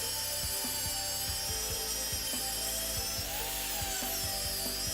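Power grinder sanding down the base of a deer shed antler, a steady high whine that dips in pitch about three seconds in as it bears on the antler.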